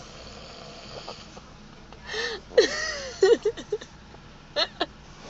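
A man snoring in his sleep: a noisy breath about two seconds in, a run of short, irregular snores around three seconds, and one more just before the end.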